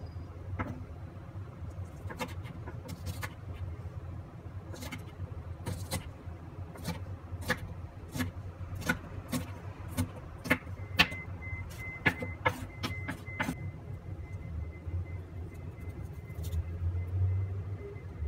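Kitchen knife chopping green chillies on a bamboo cutting board: irregular sharp knocks of the blade against the wood, roughly one a second, over a steady low hum.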